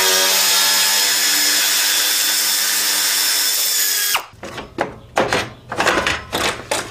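Chicago Pneumatic quarter-inch-drive air ratchet running steadily for about four seconds, spinning out a fan shroud screw, then cutting off suddenly. A few knocks and rattles follow as the plastic fan shroud is handled.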